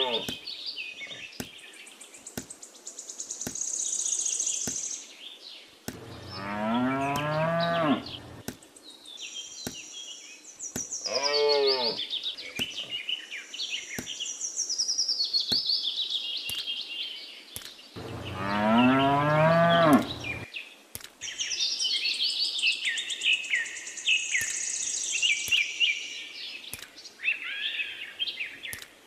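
Cows mooing: three long moos several seconds apart, the middle one shorter and rising then falling in pitch, over birds chirping.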